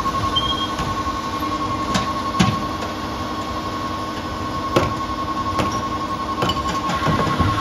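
A rear-loader garbage truck's engine and hydraulics running as its rear cart tipper lifts and dumps a recycling cart, with several sharp knocks as the cart is banged and shaken out. A constant high beeping alarm sounds throughout; it signals that the compactor body has reached maximum capacity.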